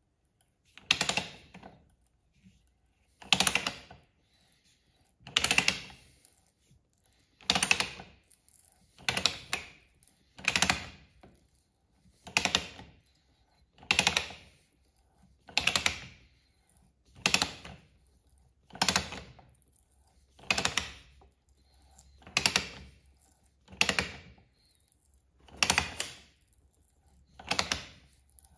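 Handmade ratchet tap wrench clicking as its handle is swung back and forth to drive a tap: a quick run of pawl clicks on each return stroke, repeating steadily about every second and a half to two seconds.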